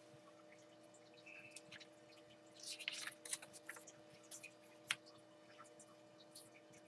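Faint rustle of a paper page being turned over on a writing pad, followed by a single small click about five seconds in, over a faint steady electrical hum.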